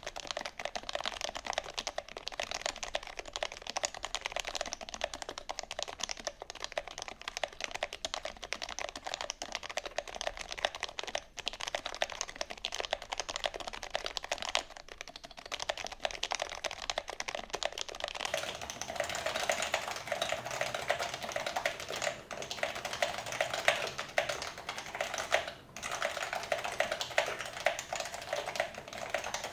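Steady, fast typing on a custom keyboard with lubed Topre switches, an aluminium plate and OEM-profile keycaps: a dense run of keystrokes with a few brief pauses.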